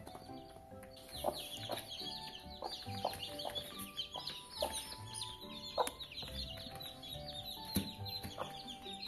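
Baby chicks peeping continuously in quick, high, short calls, with a hen's short clucks now and then, over background music.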